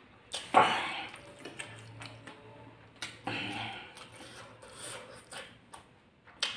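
A man's heavy breaths through the mouth, two loud ones about half a second in and about three seconds in, with small mouth clicks and chewing between: panting from the burn of very spicy fried rice with bird's-eye chillies.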